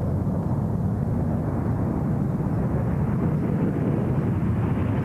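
B-1B Lancer bomber's four afterburning turbofan engines at full takeoff thrust: a steady, deep jet rumble, with the hiss growing a little toward the end.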